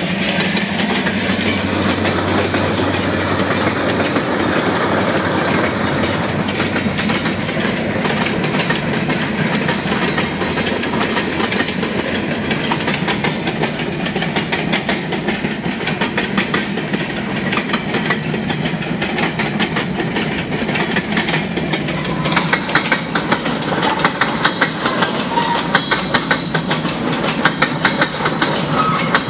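Freight train cars rolling past at speed: a steady rumble of steel wheels on rail with a rapid clickety-clack over the rail joints.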